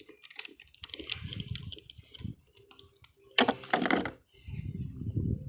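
Hand tools and small metal parts clicking and rattling during bolt removal, with a louder burst of metallic clatter about three and a half seconds in.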